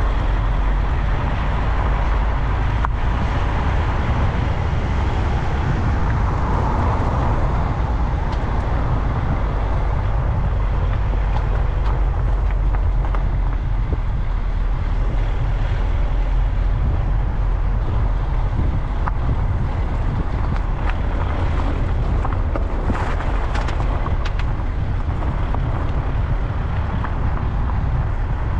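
Car driving along a lane: a steady low rumble of engine and road noise with wind on the microphone. A few light clicks come through near the end.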